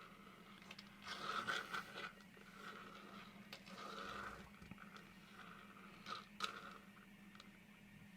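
Faint scraping and rustling of a diecast toy car being handled and rolled across a mat, with two light clicks about six seconds in, over a steady low hum.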